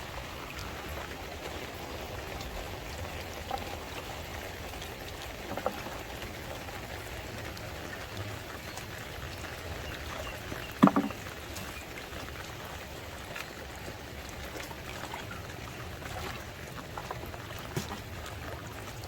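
Water dripping and splashing in the shallows over a steady background hiss, with a few faint clicks. A brief pitched, voice-like sound about eleven seconds in is the loudest moment.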